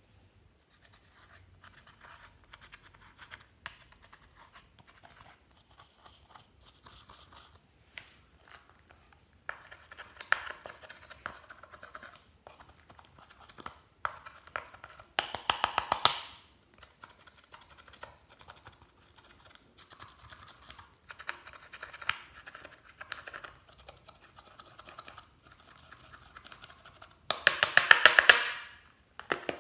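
Pressed eyeshadow being scraped and crumbled out of a palette's pans: a fine, fast scratching, with two louder, denser spells of scraping, one about halfway and one near the end.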